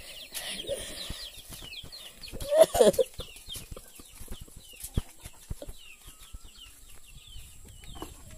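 Village chickens (ayam kampung) clucking, with one louder call about two and a half seconds in, over a steady run of quick high chirps and a few short knocks.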